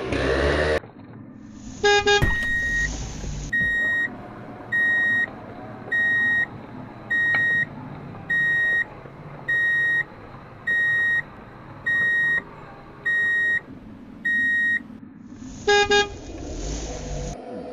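A vehicle's reversing alarm beeping steadily at one high pitch, about one beep a second, roughly ten times, over a low motor hum. A quick burst of rapid lower chirps comes just before the beeping starts and again just after it stops. A louder engine-like sound cuts off within the first second.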